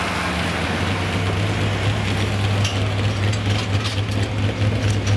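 Modified 4x4 pulling truck's engine idling steadily with a deep, even hum, staged on the sled before the pull.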